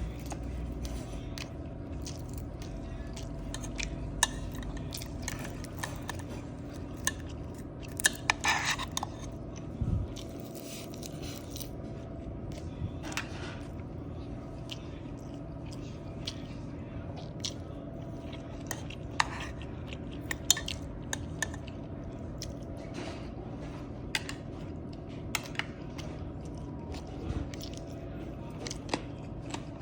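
A person chewing and eating from a takeout lunchbox, with scattered short clicks and scrapes of utensils against the container, a brief cluster of them about eight seconds in, over a steady low hum.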